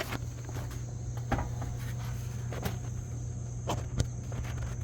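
A steady high-pitched chirring, like crickets, over a low steady hum, with about five sharp knocks or footsteps scattered through it.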